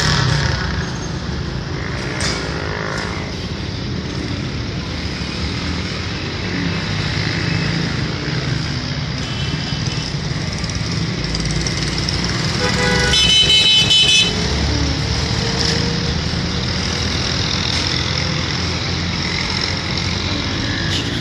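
Street traffic and motorcycle engines running steadily, with a vehicle horn sounding once for about a second and a half about two-thirds of the way through.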